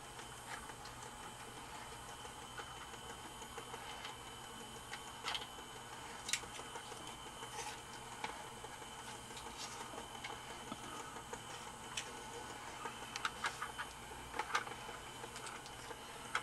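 Small motor and plastic gear train of a Department 56 animated ski slope running with a faint steady whine, being tested after its gears were lubricated. Scattered light clicks and taps come over it, several close together near the end.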